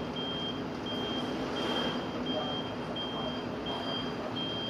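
Washing machine running with a steady noise, making the abnormal sound it is being recorded for. Over it, a high electronic beep repeats evenly about every 0.7 s.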